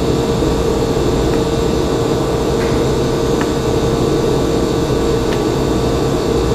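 Steady whirring machine hum with one constant tone, and a few faint clicks.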